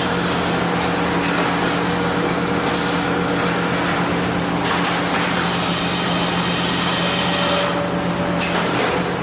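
Sawmill machinery running steadily: a constant low hum under an even rush of noise, with faint steady whines that come and go.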